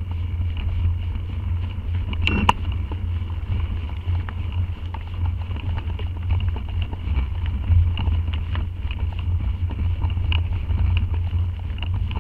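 Mountain bike rolling over a dirt forest trail, heard through a mounted action camera: a steady low rumble of trail vibration and wind on the microphone, with scattered small rattles and clicks from the bike. A sharper knock comes a little over two seconds in.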